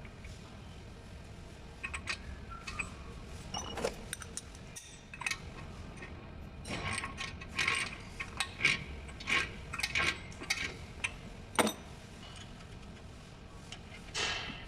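Metal hand tools and parts clinking and clattering in irregular short knocks, busiest in the middle, with a sharper metallic hit near the end.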